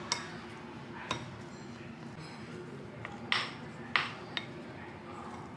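Wooden spatula knocking and scraping against a glass mixing bowl while stirring sticky rice: a few sharp clinks spread out, with two short scrapes a little past the middle.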